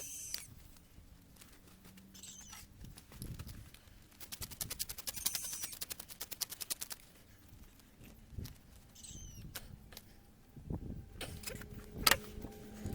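Hand tools working on the engine during injector refitting: a ratchet wrench clicks rapidly for about three seconds, with scattered metal clinks and a single sharp knock near the end.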